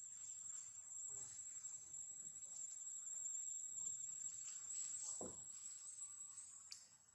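Faint, steady, high-pitched insect chorus, with a brief dull thump about five seconds in.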